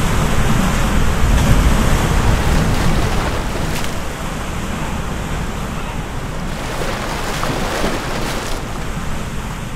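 Surf breaking and rolling in: a dense, steady rush of white water with a heavy low rumble, loudest over the first three seconds.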